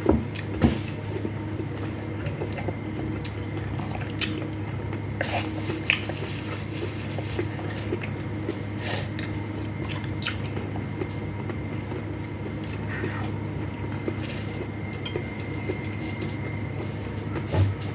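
Spoon and utensils clinking and scraping against bowls now and then during a noodle meal, over a steady low hum.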